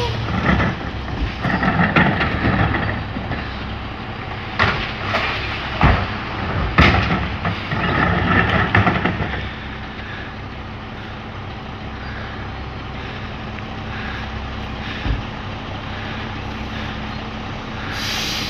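Mack LE rear loader garbage truck's diesel engine running steadily while recycling is emptied into its McNeilus hopper: loud irregular clattering and banging of recyclables and carts through the first half, then mostly the steady engine with a single knock.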